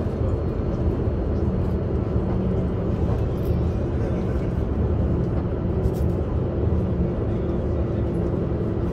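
Steady running noise of a Talent 2 (class 442) electric multiple unit, heard from inside the passenger car: an even low rumble from wheels and running gear, with a few faint steady tones over it.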